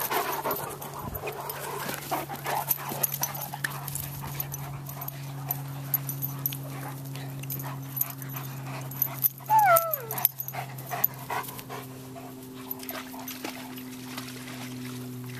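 Two large dogs playing rough, a Great Dane and a mastiff-type dog, panting heavily with scuffling; about ten seconds in, one gives a short whine that slides down in pitch. A steady low hum runs underneath.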